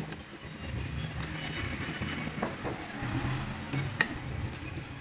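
A low background rumble with a steady engine-like hum, broken by a few sharp clicks and taps, the loudest about four seconds in.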